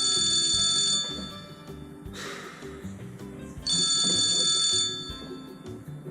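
Telephone ringing: two rings, each about a second long and about three and a half seconds apart, over background music.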